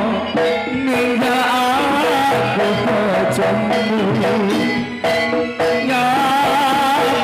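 Live Javanese jaranan ensemble music: drums keep a steady beat under a melody with a singer's wavering voice.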